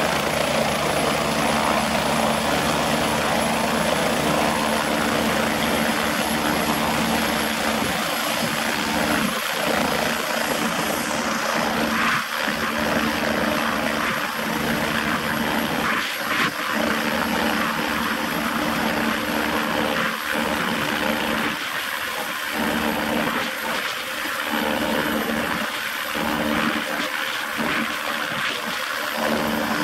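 MBB Bo 105 helicopter running on the ground with its main rotor turning: a steady engine and rotor noise with a constant hum and a thin high-pitched turbine whine.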